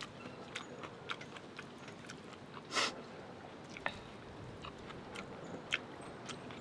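A person chewing a mouthful of noodles close to the microphone: soft wet mouth clicks and smacks, with one louder smack about three seconds in.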